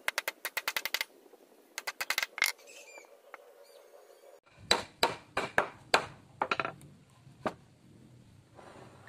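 Wooden parts and tools being handled while glued boards are fitted together: quick runs of sharp clicks and taps, then, about four and a half seconds in, a set of louder, irregular knocks.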